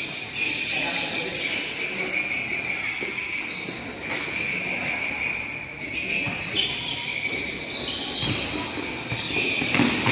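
Futsal ball kicked and bouncing on a hard court a few times, over a steady high chirping and faint voices in the background.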